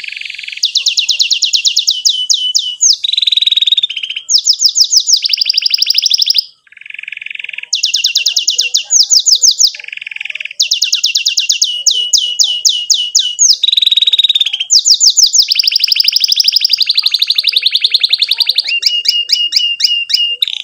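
Domestic canary singing a long song of trilled phrases: fast runs of repeated downward-sweeping chirps alternate with buzzy rolls, with one short pause about six seconds in.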